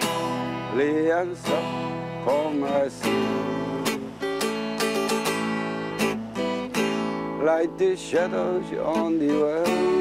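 A song: acoustic guitar strumming with a singing voice.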